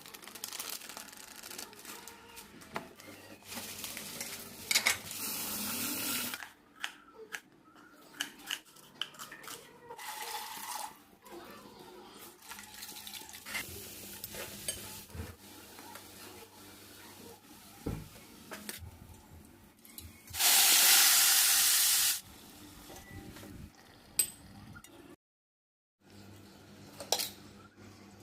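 Cooking sounds: metal utensils clinking and scraping against pots and pans, with several bursts of hissing noise, the loudest about two-thirds of the way in.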